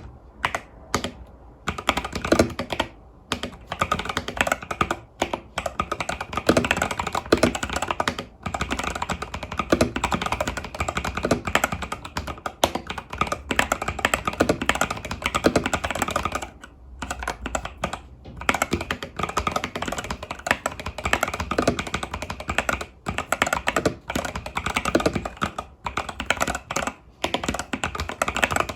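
Continuous typing on an Epomaker TH80 Pro mechanical keyboard with Epomaker Budgerigar tactile switches and stock keycaps: rapid, clustered key presses with a few brief pauses.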